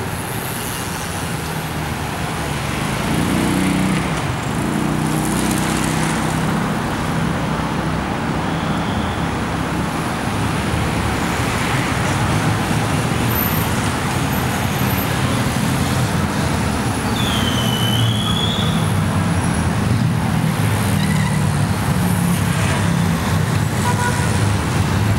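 Steady city street noise: a continuous hum of road traffic. A single short high chirp comes about two-thirds of the way through.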